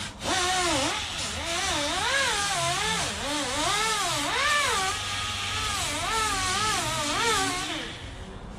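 Handheld grinder grinding down the hard molded edge of a foam seat cushion, its motor pitch swinging up and down over and over as it works; it stops about eight seconds in.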